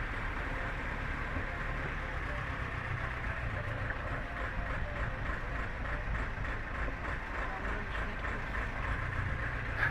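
A sailboat's engine running steadily at low speed as the boat motors slowly.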